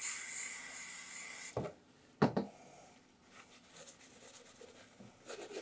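A rough hissing scrape for about a second and a half, then two sharp knocks as the aluminum small-block Chevy cylinder head is turned over and set down on the bench, followed by faint rubbing and handling.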